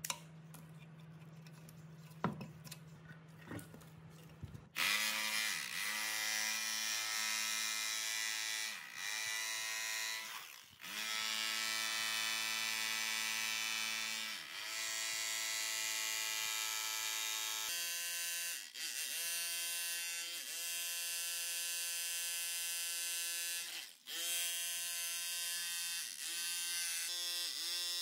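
A few sharp snips of pliers cutting wire, then from about five seconds in a corded rotary hammer with a chisel bit running steadily as it chips hardened concrete off a plate vibrator's motor housing, stopping briefly several times when the trigger is let go.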